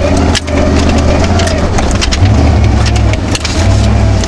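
Chevy Blazer's engine pulling under load while the truck wades through a creek, with water splashing and rushing against it and scattered knocks. The engine gets louder twice, about two seconds in and again near the end.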